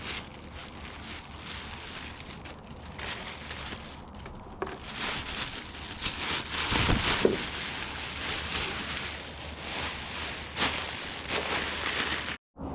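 A rock is pressed against a spinning leather buffing wheel loaded with wet cerium oxide for the final polish. It makes a rough rubbing hiss that swells and eases as the pressure and angle change, over a faint steady motor hum. The sound cuts off abruptly just before the end.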